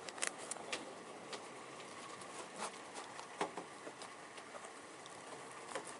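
Faint scattered knocks and taps over a steady hiss: people moving about a boat and rummaging through its compartments for safety gear.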